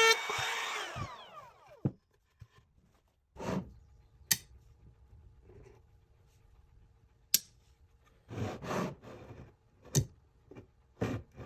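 Sparse sharp knocks and clicks with short rubbing and scraping sounds, typical of wooden parts and hand tools being handled in a workshop. At the start a horn-like tone slides down in pitch and fades within the first second or so.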